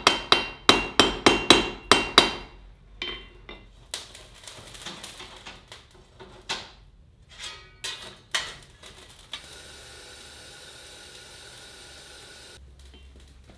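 Hammer blows on steel ringing off an anvil: a quick run of about eight blows, then scattered single strikes. About nine seconds in, a steady hiss takes over for some three seconds.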